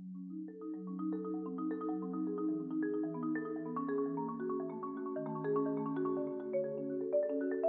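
Marimba played with mallets: after a brief dip, a quick run of struck notes starts about half a second in, with held low notes sounding underneath.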